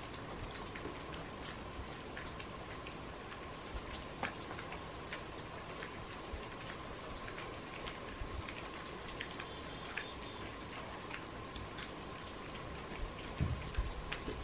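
Melting snow dripping off a roof: irregular drips ticking down at an uneven pace, over a faint steady hum, with a few low thumps near the end.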